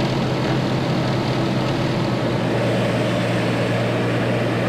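Small single-engine propeller plane's engine and propeller running steadily at a constant pitch, heard from inside the cabin.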